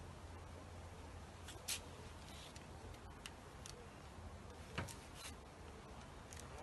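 Faint, scattered clicks of a socket ratchet handle being turned on a 3D-printed airsoft gun's mechanism, a few sharp ticks spread out with gaps of a second or more.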